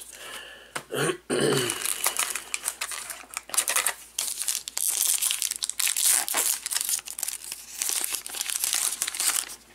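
A baseball card pack's wrapper crinkling and tearing as it is pulled open by hand: a dense run of crackles and rips.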